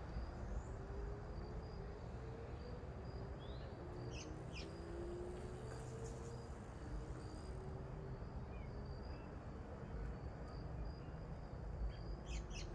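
Insects trilling steadily in one continuous high, thin, slightly pulsing tone over a low background rumble, with a few short bird chirps about four seconds in and near the end.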